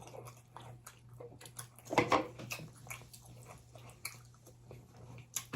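Close-miked chewing and wet mouth sounds of someone eating chicken wings: many small clicks and smacks, with a louder mouth noise about two seconds in. A faint steady low hum sits underneath.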